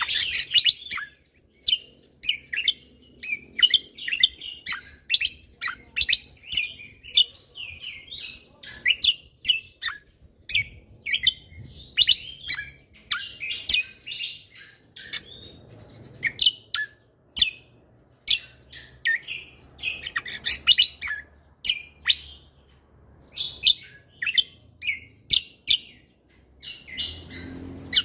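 Cucak kombo (kecial kombo) songbird singing energetically: rapid runs of short, sharp, high chirps and whistled notes with only brief pauses, the vigorous 'gacor' song with fast 'tembakan' bursts.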